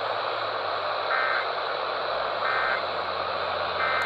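Emergency Alert System end-of-message data bursts: three short warbling digital chirps about 1.4 seconds apart over steady radio hiss, signalling the end of the alert message.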